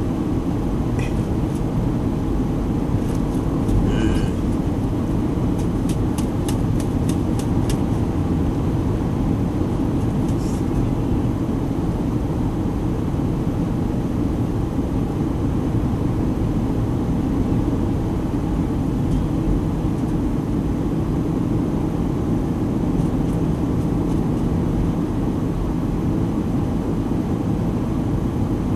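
Lawn mower engine running steadily at constant speed, with a short run of faint ticks about six to eight seconds in.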